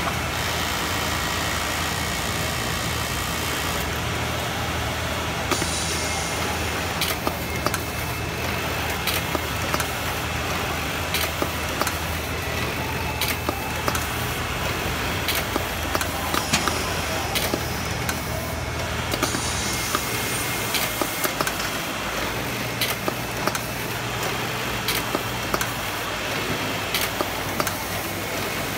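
Automatic buttonhole sewing machine with indexer running: a steady low machine hum with frequent short clicks and clacks from its mechanism. The lowest part of the hum drops away about two-thirds of the way through.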